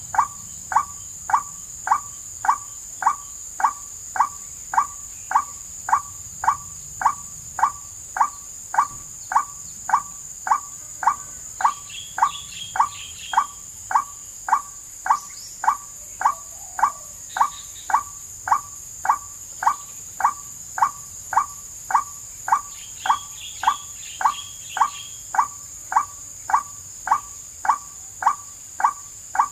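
Looped lure recording of a white-breasted waterhen (wak-wak) call, played to draw the birds in: one short call repeated with machine-like regularity, about three every two seconds, over a steady high insect drone. A few brief higher bird chirps come in about twelve and twenty-three seconds in.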